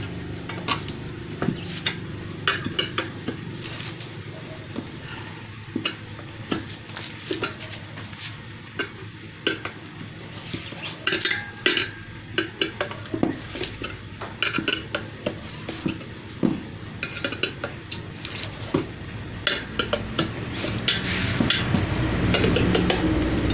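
Steel tyre lever scraping and clinking against a chrome spoked motorcycle wheel rim as the tyre bead is levered back on over a new inner tube: irregular metallic clinks and scrapes.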